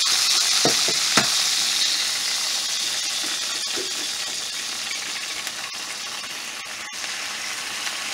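Egg sizzling as it fries in a hot pan, a steady hiss that slowly eases off, with a couple of short knocks about a second in.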